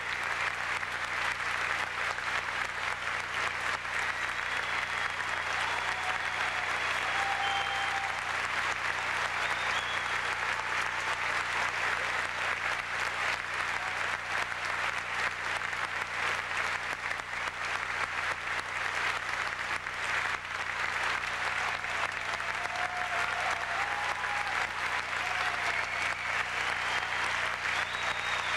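Large audience applauding: steady, dense clapping that keeps going without a break, over a steady low hum.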